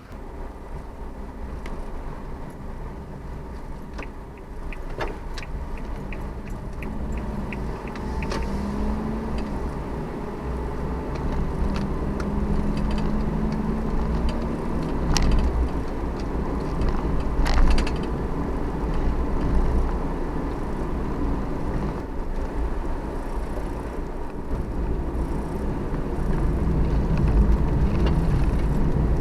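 Suzuki Every kei van on the move: a steady low rumble of engine and road noise, slowly growing louder, with a few scattered clicks and knocks.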